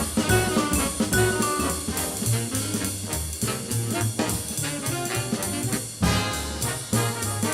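Big-band jazz recording: a brass section plays over bass and drums with a steady swinging beat.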